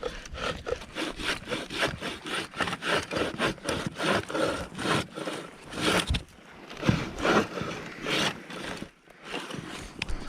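Hand saw cutting through a tree trunk in quick back-and-forth rasping strokes, which become fewer and slower after about six seconds.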